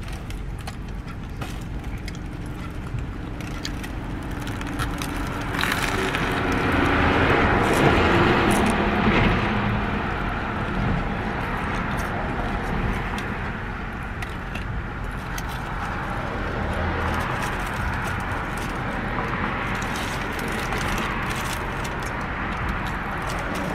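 Steady road traffic noise, swelling as a vehicle passes about six seconds in and fading again by about ten seconds. Faint crackly clicks run through it.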